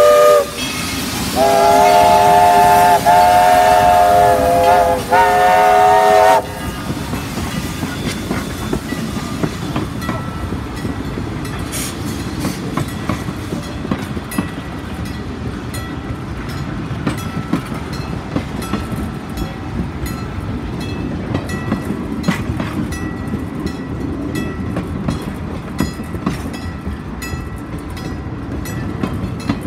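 Steam locomotive whistle sounding a chord in several blasts with short breaks for the first six seconds or so. Then the coaches roll past with a steady rumble and regular clicking of wheels over the rails.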